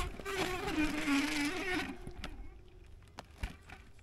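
Electric mountain bike's mid-drive motor whining, its pitch dipping lower for about a second, over a rush of riding noise; it fades out about two seconds in, leaving faint clicks.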